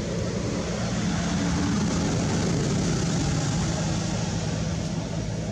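A steady engine drone with a low hum that swells a little and then eases off again.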